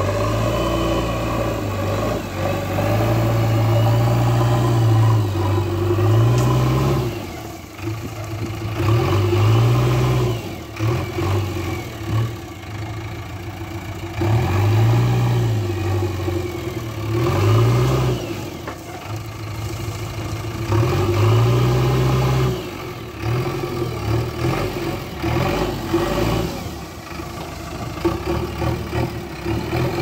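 JCB backhoe loader's diesel engine revving up and dropping back again and again as the front bucket scoops and lifts earth, its pitch rising and falling every few seconds.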